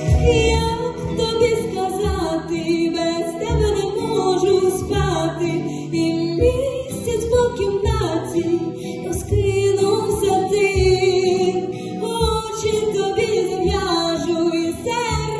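A song: a woman singing a melody over instrumental backing with a recurring bass line.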